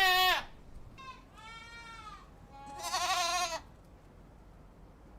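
Goat bleating: the end of one call at the start, then a fainter bleat about a second in, and a louder, wavering bleat a little past the middle.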